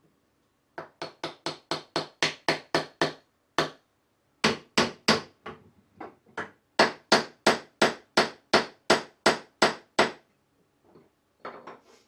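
A small hammer striking wood in three runs of quick, evenly spaced blows, about three a second, with short pauses between: wooden parts of a saw vise being driven together. A few faint knocks follow near the end.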